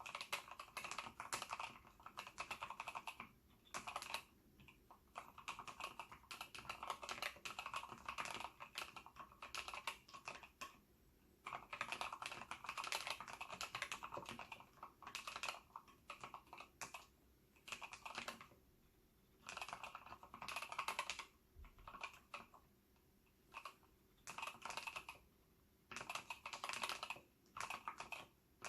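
Mechanical keyboard in an acrylic case, with Gateron yellow linear switches fully lubed with Krytox, typed on in quick runs of keystrokes a second or two long with short pauses between.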